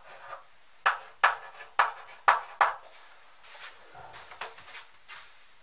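Chalk tapping and scraping on a blackboard as numbers are written: five sharp taps roughly half a second apart, then only faint ticks.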